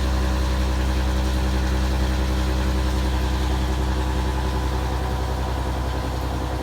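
CNC gear hobbing machine (EIFCO Hobber 250R, direct-drive hob and work spindles) running its automatic cycle, the hob cutting the teeth of a small 26-tooth sprocket. It makes a steady hum with several fixed tones over it, and the deep hum eases slightly near the end.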